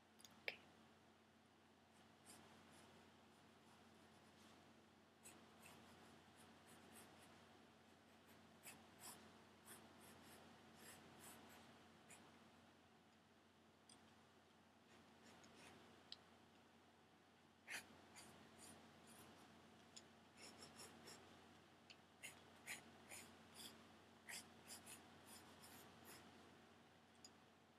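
Pencil sketching on a plain drawing pad: faint scratching strokes come in short clusters with pauses between them. A single sharp tap about half a second in is the loudest sound.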